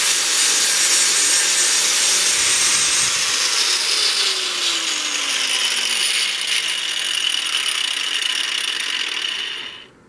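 Angle grinder running, grinding out the old pin of a car door hinge clamped in a vise. A tone slides down through the middle seconds, and the grinder cuts off just before the end.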